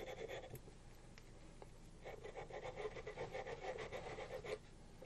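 Small wire brush scrubbing caked-on carbon from a rifle bolt in quick, faint back-and-forth strokes, starting about two seconds in after a couple of light ticks.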